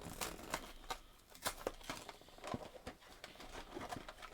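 Snack package being handled: irregular crinkling and crackling of its packaging.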